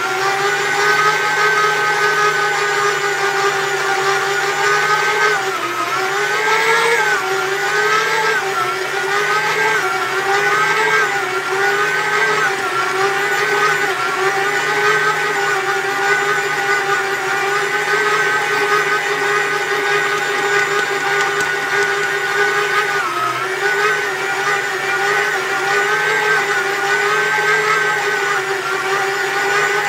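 Karaca Mastermaid Chef Pro 1750W stand mixer's motor running steadily as its dough hook kneads mantı dough in the steel bowl. Its whine wavers and dips in pitch several times in the first half and once more later, as the dough ball drags on the hook under load.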